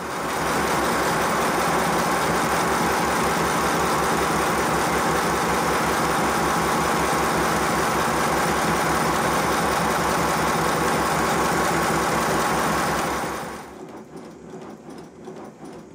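A 5-inch gauge model GWR pannier tank steam locomotive running fast on compressed air on a rolling road, its motion and exhaust giving a fast, even beat amplified by the workbench. About 13 seconds in, it slows to a much quieter, slower beat.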